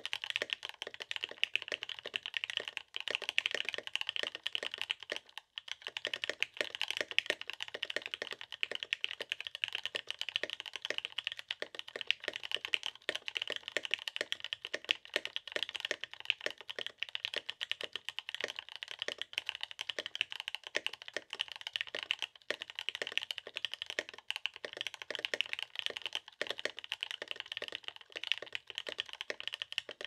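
Continuous typing on a Laneware LW-75 prototype custom mechanical keyboard with stock Gateron Oil King linear switches, NicePBT keycaps and an aluminium plate: a dense, unbroken stream of keystroke clacks.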